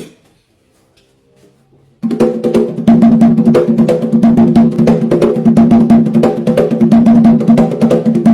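Atabaque drums struck in a fast, dense, steady rhythm, the drum heads ringing with a clear pitch. After a single hit at the very start and a near-quiet pause, the drumming begins about two seconds in and grows louder a second later.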